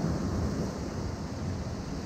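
Ocean waves washing against a rocky shore: a steady rushing surf that eases off a little in the first half second.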